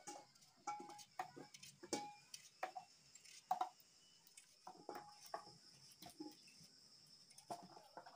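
Knife cutting chayote squash by hand: irregular small clicks as the blade goes through, with pieces dropping into a stainless steel bowl and giving brief light rings. A steady high insect chirring runs underneath.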